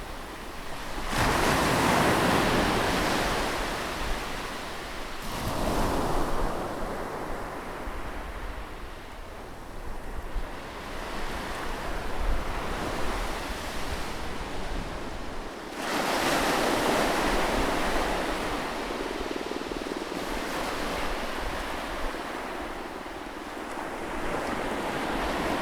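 Sea waves breaking close to the shore: the surf surges up about a second in, again a few seconds later, and again more than halfway through, each wash fading slowly, over a steady low rumble of the sea.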